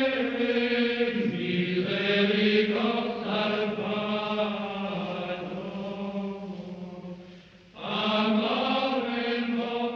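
Sung chant: slow, long-held vocal notes that shift gently from pitch to pitch, with a short break for breath about three-quarters of the way through.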